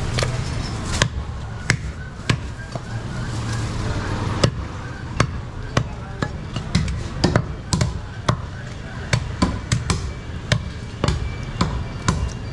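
A large butcher's knife chopping goat meat and bone on a wooden log chopping block: many sharp knocks at an uneven pace, some in quick runs.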